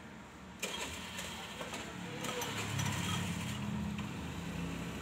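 Socket ratchet wrench working a bolt on a car's transmission, its pawl clicking, with a sharp metallic knock about half a second in and a low hum behind it.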